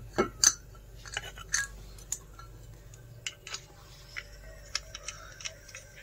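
Metallic clinks and taps of brass fittings and a gauge hose being handled and coupled to a refrigerant gas cylinder: two sharp clinks in the first half second, then scattered lighter clicks.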